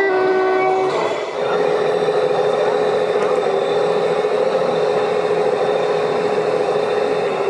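An RC model truck's sound-module air horn blasts, stopping about a second in, then the model's simulated diesel engine runs steadily.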